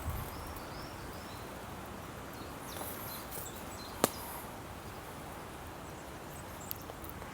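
Outdoor countryside ambience: a steady faint hiss with a few short, high bird chirps near the start and a single sharp click about four seconds in.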